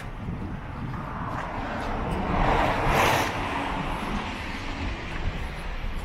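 A car driving past on a wet cobbled road, its tyre noise swelling to a peak about three seconds in and fading away, over a steady rumble of city traffic.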